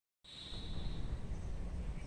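Outdoor ambience: an uneven low rumble, like wind buffeting the microphone, with a faint steady high whine for about the first second and a faint chirp or two later on.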